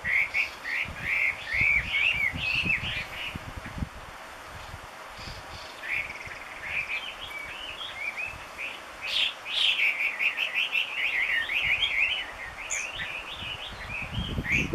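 Chinese hwamei (Garrulax canorus) singing loudly: fast, varied whistled phrases that rise and fall. There is a burst at the start, a short pause, then a longer run of song from about six seconds in.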